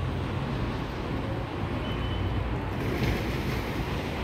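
Class S12 diesel multiple unit approaching along the track, its engine and wheels making a steady low rumble that grows slightly in the upper range near the end, with a brief thin high squeal about two seconds in.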